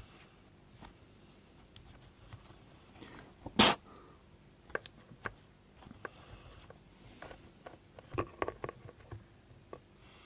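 Plastic air filter cover of a Shindaiwa T270 trimmer being handled against the engine housing: scattered light clicks and knocks, with one sharp knock about three and a half seconds in and a cluster of knocks near the end.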